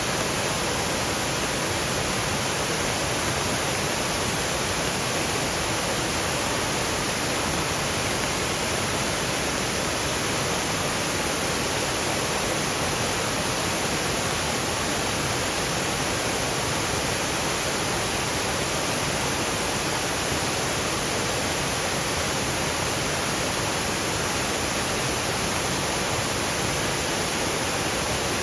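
Waterfall rushing steadily over rocky ledges, with light rain falling through the trees.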